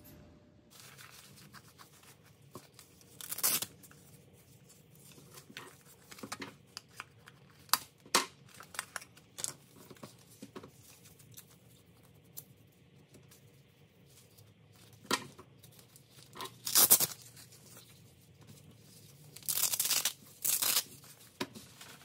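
VELCRO Brand Easy Hang hook-and-loop straps being pulled apart by hand: a series of short rips several seconds apart, the loudest and longest near the end, with light handling ticks between them.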